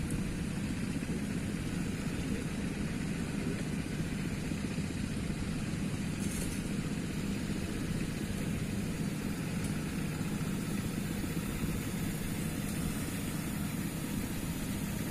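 A steady low hum of a running motor, unchanging throughout.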